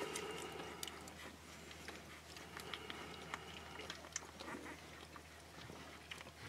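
Faint small squeaks and scattered scratchy clicks from 12-day-old Akita puppies moving about beside their mother, over a low steady hum.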